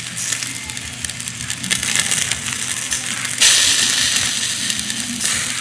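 Whole catfish grilling on a wire rack over charcoal, with fat dripping onto the coals, crackling and popping. About halfway through it swells into a loud sizzling hiss for nearly two seconds, then drops back.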